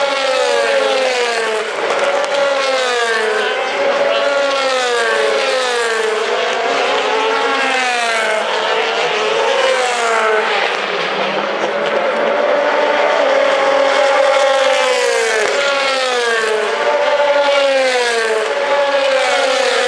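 DTM race car V8 engines at racing speed, their pitch rising and falling over and over every second or two as the cars accelerate, shift and brake.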